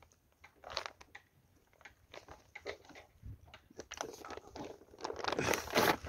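Scattered light knocks and crunchy crackling from gear being handled on a fishing boat. They are sparse at first and grow busier and a little louder near the end.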